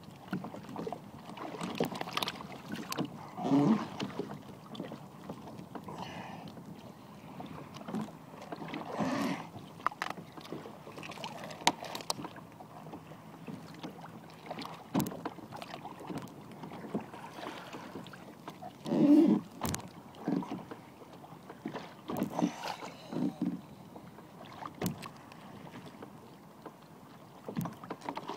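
Water lapping and sloshing around a small boat at sea, with irregular swells of sound and a few sharp knocks from handling.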